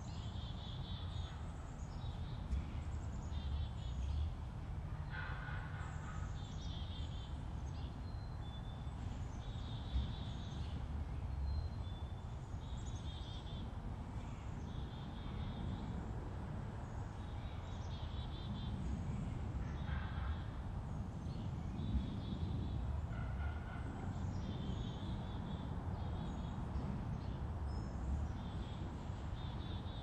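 Wild turkeys calling: a few gobbles from the toms, with short high-pitched calls repeating about once a second in between.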